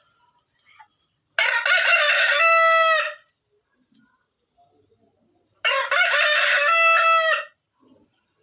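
Rooster crowing twice, each cock-a-doodle-doo about two seconds long and ending on a long held note, with a pause of a couple of seconds between the crows.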